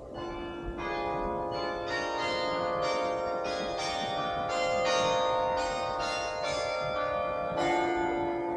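Carillon bells playing a tune, struck notes about two a second, each ringing on and overlapping the next.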